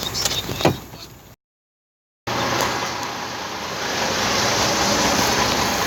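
A few sharp clicks, then a brief dead-silent cut, then steady rushing vehicle noise with no distinct tones, a little louder for the last two seconds.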